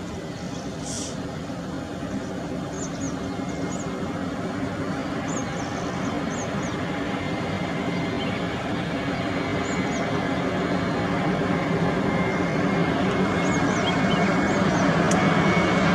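Airbus A321-211's CFM56 jet engines on final approach, a steady rumble and hiss growing louder throughout as the airliner comes nearer.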